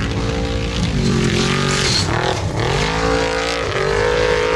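Formula Offroad race car's engine revving hard as the car climbs a steep gravel slope. The revs drop sharply twice, about a second in and again past the middle, then climb back up.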